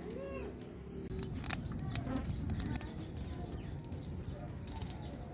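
Wood fire crackling in a clay tandoor, with irregular sharp snaps and pops, while birds chirp in short rising-and-falling calls.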